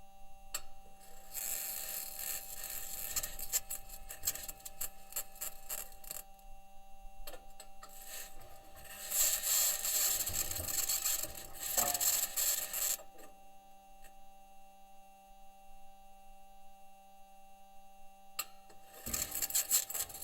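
Audio recorded by the Perseverance rover's microphone on Mars: harsh scraping and rasping in three stretches of a few seconds each, over a steady hum.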